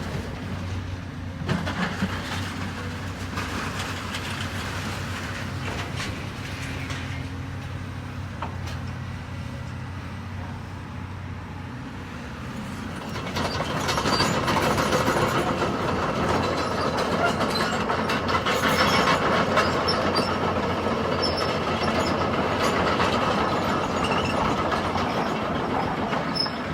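Demolition excavator's engine running steadily, then, about halfway through, louder crunching and clattering as the machine tears into the building and debris breaks and falls.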